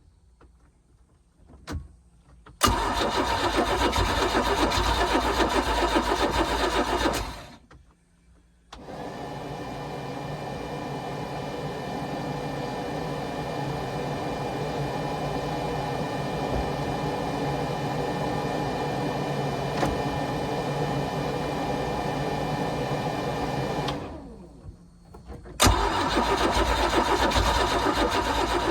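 A MerCruiser 4.3 L V6 boat engine being cranked over by its starter in two bursts, about five seconds and then about three seconds, failing to start after priming. Between the bursts there is a quieter, steady mechanical hum lasting about fifteen seconds.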